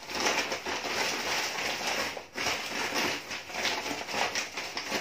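Large brown paper bag rustling and crinkling as hands rummage inside it, with a brief pause a little past two seconds in.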